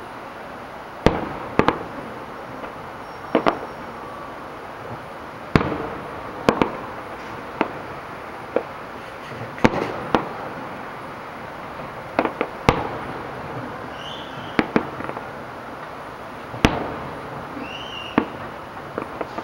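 Aerial firework shells bursting in an irregular series of sharp bangs about once a second, some in quick pairs, each with a short echoing tail, over a steady background hiss.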